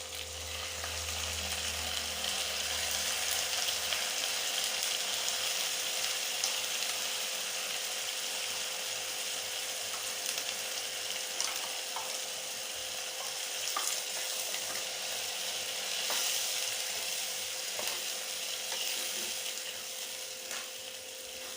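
Ginger-garlic-onion paste sizzling in hot oil in a kadhai as it is stirred, with a steady frying hiss and a few light clicks of the spatula against the pan.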